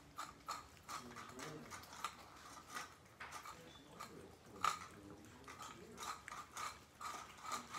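A cat eating its food, a faint run of irregular chewing clicks.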